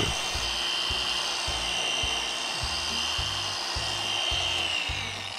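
Adam's Mini Swirl Killer random orbital polisher running with a steady high whine, its foam pad buffing heavy correcting compound into painted tractor bodywork to remove swirl marks. The whine drops in pitch near the end.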